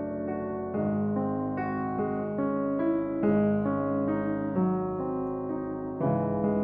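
Danemann acoustic piano being played: a slow passage of chords and melody notes, a new chord struck about every second and left to ring over the next.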